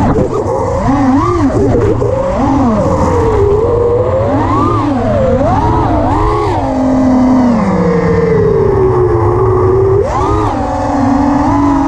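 Brushless motors of an Armattan Chameleon FPV quadcopter (Armattan Oomph 2203 2300kv) whining, the pitch rising and falling over and over as the throttle is worked. About seven seconds in the pitch drops and holds lower and steadier, then rises sharply once more near the end and settles.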